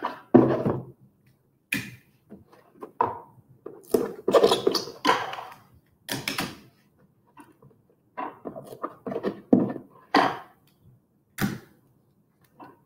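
Irregular rustles, short scrapes and knocks of hands taping plastic wrap onto a foil-covered cardboard box: adhesive tape pulled off the roll and pressed down, with the wrap and box being handled.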